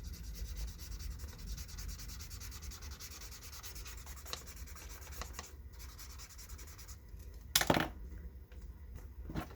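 Paper and packaging being handled, rubbing and rustling steadily for the first half, then quieter, with a single sharp, louder sound about three-quarters of the way through.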